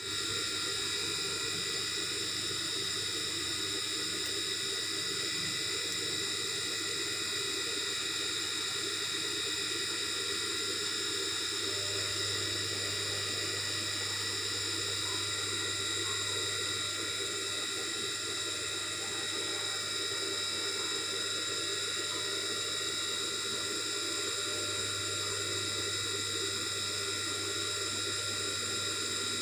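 Steady, unchanging hiss with a low hum and faint high fixed tones, with no separate clicks or knocks.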